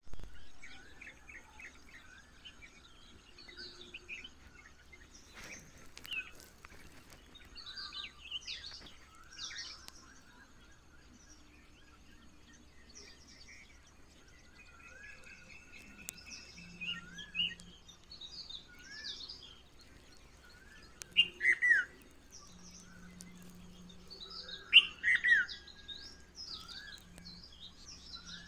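Several songbirds chirping and whistling, many short calls overlapping, with the loudest calls about 21 and 25 seconds in. A faint steady low hum runs underneath.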